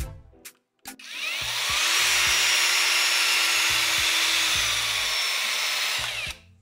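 Parkside PFMRA 20-Li A1 cordless paddle mixer running for about five seconds, starting about a second in. It makes a steady whirring hiss with a motor whine that drops in pitch shortly before the sound cuts off. Background music plays under it.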